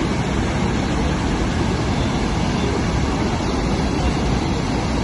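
Water pouring through a dam's open spillway gates, a loud steady rushing noise.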